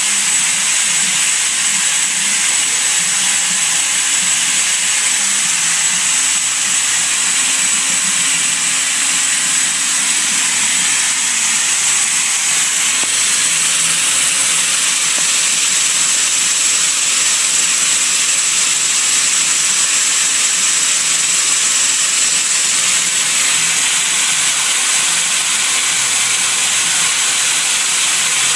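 Doosan 700LM mill-turn lathe milling a screw flight on its C axis with a live tool, under coolant: a steady hiss of coolant spray and cutting, with a thin, high steady whine.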